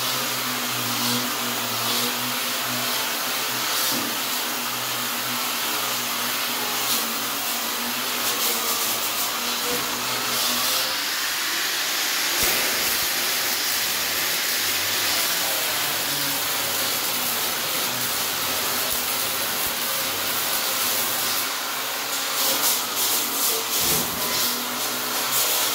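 Steady workshop machine noise: a hiss with a low hum underneath, and a rapid crackling for a few seconds near the end.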